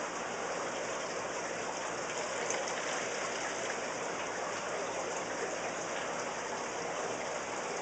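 Steady rushing and splashing of running water, an even hiss with no breaks or distinct events.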